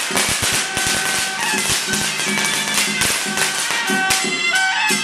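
Firecrackers crackling in rapid pops that thin out after about two seconds, over traditional Taoist ritual music with sustained wind-instrument tones.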